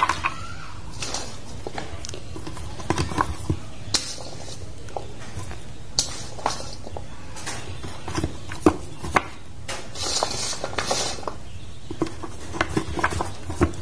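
Dried rhizome slices being pushed by hand into a plastic jar of dried herbs and seeds, with irregular small clicks and knocks as the hard pieces strike each other and the jar, and some rustling.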